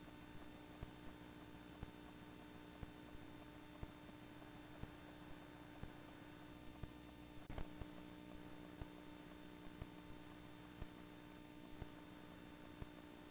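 Near silence: a faint steady electrical hum, with occasional faint clicks.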